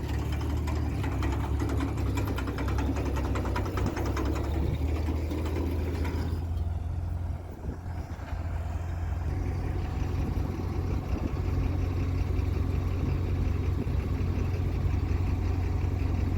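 Tractor engine running steadily at a low idle-like hum, with a brief drop in level about seven seconds in.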